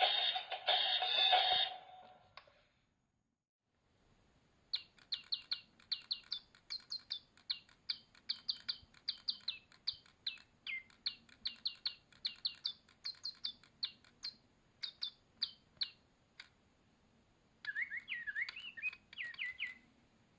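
A loud electronic tune from toy birds stops about two seconds in. After a short pause, electronic toy bird chirps come in quick short high tweets that slide downward, several a second, followed near the end by a brief warbling trill.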